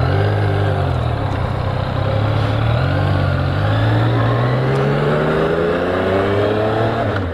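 Yamaha MT-09's three-cylinder engine pulling away and accelerating, its pitch climbing steadily for several seconds and then falling away near the end. It is heard through a microphone inside the rider's helmet, with a steady rush of wind and road noise underneath.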